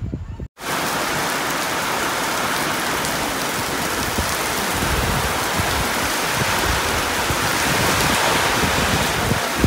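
Heavy rain pouring down in a thunderstorm: a steady, even hiss that starts suddenly about half a second in.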